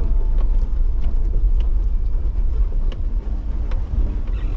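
Steady low rumble of a Toyota 4x4 motorhome driving on a rough rural road, heard from inside the cab, with a few light knocks and rattles.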